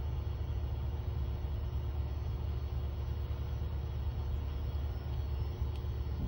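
UALAU OL280 hot and cold laminator running, its roller motor making a steady low hum as a pouch feeds through the rollers.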